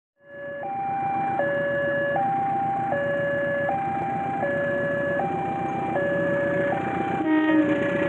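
Railway level-crossing warning alarm: an electronic two-tone signal alternating high and low about every three-quarters of a second, warning of an approaching train, over steady background noise. A short horn blast sounds near the end.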